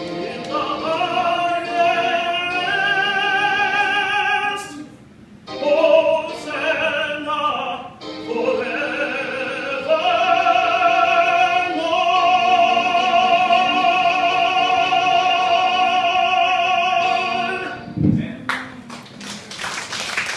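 A man singing solo with a wide vibrato: a few short phrases, then one long held final note. Near the end the singing stops and the audience starts clapping.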